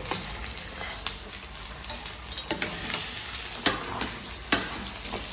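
Mashed potato and beetroot sizzling in hot mustard oil in a steel kadai, with a metal spoon scraping the food off a steel plate and knocking against the pan several times.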